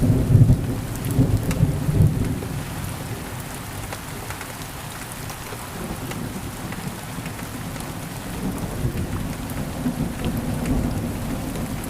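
Steady rain falling, with low rumbles of thunder in the first couple of seconds and again near the end.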